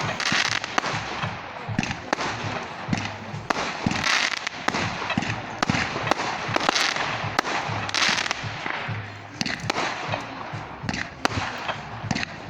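Fireworks going off: a string of sharp bangs at irregular intervals, several a second, with bursts of crackling hiss among them.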